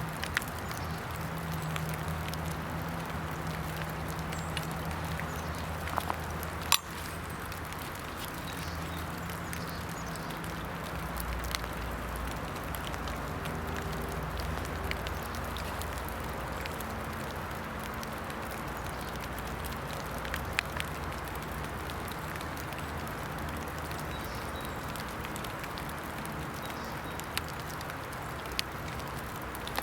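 Steady outdoor background noise with a low drone underneath, broken by a few faint scattered clicks and one sharper click about seven seconds in.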